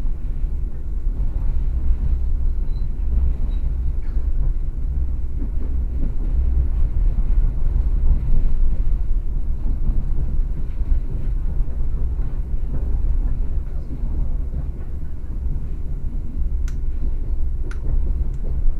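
Passenger train running along the track, heard from inside the carriage as a steady low rumble. Two sharp clicks about a second apart near the end.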